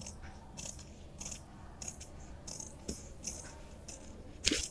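Scissors snipping through brown pattern paper in short, regular cuts, about one snip every two-thirds of a second, then a louder rustle of the paper near the end.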